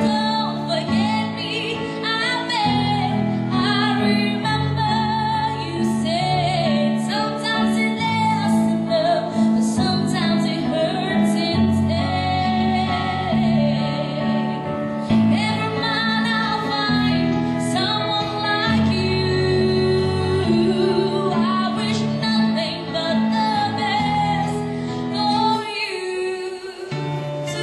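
A woman singing a slow pop ballad into a microphone, amplified through a PA, over instrumental accompaniment with a steady bass line that drops out briefly near the end.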